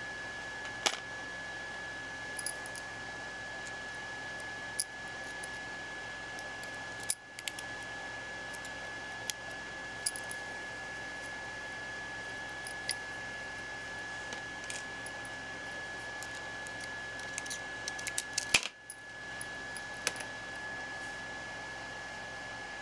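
Scattered sharp clicks and taps of small metal and plastic parts as a gas-blowback airsoft rifle's trigger assembly is worked apart by hand with a small screwdriver, with a quick run of clicks a little before the end. Beneath them runs a steady hiss with a thin high whine.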